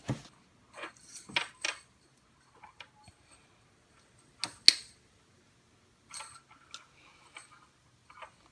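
Scattered small clicks and scrapes of hands and tools working a broken wire back onto a refrigerator defrost heater element, with a sharp double click about halfway through.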